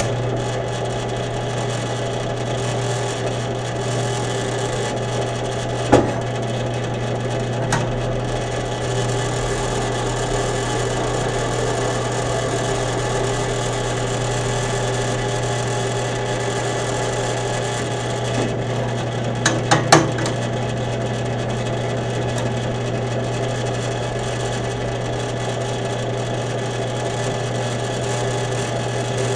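Drill press motor running with a steady hum as a 1/8-inch bit, with a little oil, drills rivet holes through a steel knife tang. A few sharp clicks about six seconds in and a quick cluster of them near twenty seconds.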